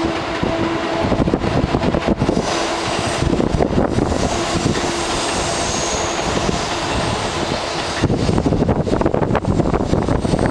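Shin-Keisei 8800 series electric train pulling away from the station and gathering speed. It runs steadily, with a faint high whine partway through and the wheels rattling over the track near the end.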